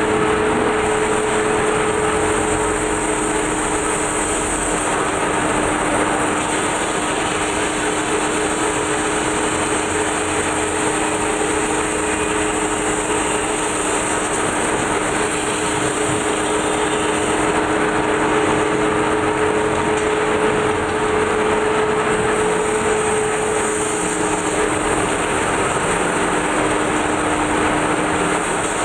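Large metal-spinning lathe running, its motor giving a steady two-note hum under a continuous rushing noise from the spinning tool rubbing on the rotating sheet-metal blank as it is pressed into shape.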